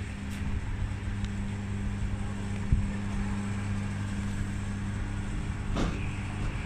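A steady low mechanical hum with rumbling wind noise on the microphone, and a short dull thump a little under three seconds in.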